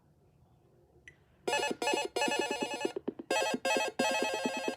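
A Sony Walkman NW-A300 preset alarm tone starts about a second and a half in. It is a trilled, phone-ring-like electronic tone in groups of two short bursts and one longer burst, each group repeating about every two seconds.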